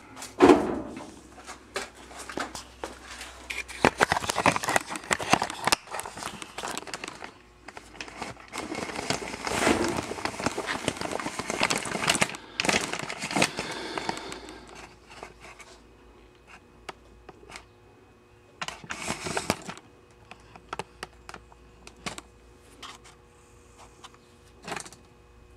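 Camera handling noise: rustling, knocks and clicks as the camera is picked up, carried and set back down. A faint steady hum runs under the quieter second half.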